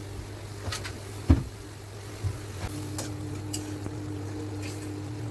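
Metal spatula knocking and scraping against an aluminium kadai of simmering fish curry, with one sharp knock about a second in and lighter clicks after. A steady low hum runs underneath.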